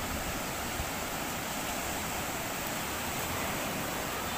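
Ocean surf breaking and washing up on the shore, a steady rushing noise.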